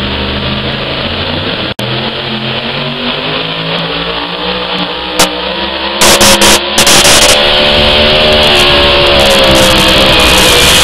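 Engine of a competition pulling vehicle running hard under load on the pull track. About six seconds in it gets much louder and distorts the recording.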